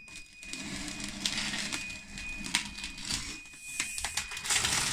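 Electric track motors and tracks of a scratch-built RC Caterpillar D6T bulldozer running under load as it pushes a 5–6 kg bucket of wheel weights, with a steady motor whine, clicks and scraping. It is a bench load test after the tracks were cleaned of clay, and the dozer moves the load without trouble.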